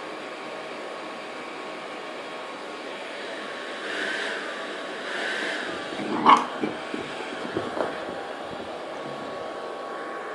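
Hair dryer blowing steadily while a cockapoo gives one sharp, loud bark about six seconds in, followed by a few quieter sounds.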